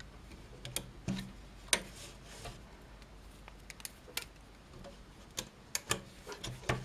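Scattered light clicks and ticks of rubber loom bands snapping and scraping against the plastic pegs of a Rainbow Loom as the bands are stretched and hooked over the pegs by hand.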